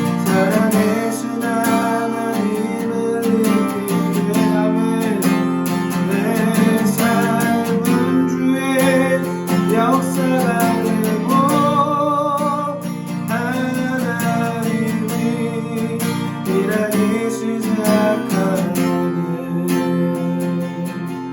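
Strummed acoustic guitar playing steadily, with a wavering melody line over it.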